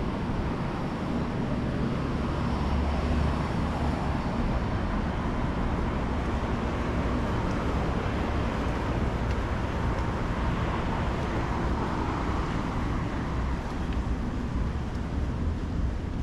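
Steady street traffic noise from cars on the road, a continuous low rumble that swells a little about two-thirds of the way in.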